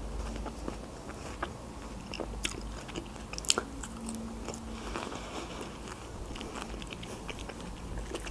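Biting into and chewing a fresh strawberry coated in whipped cream, picked up close by the microphone: many small wet mouth clicks and smacks, with one sharper bite about three and a half seconds in.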